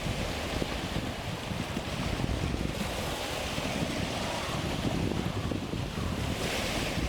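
Strong wind buffeting the microphone over choppy, confused sea waves, with the hiss of breaking water and spray swelling about three seconds in and again near the end.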